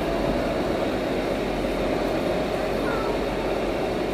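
Steady din of a busy exhibition hall: a constant drone with crowd chatter mixed in, and no single sound standing out.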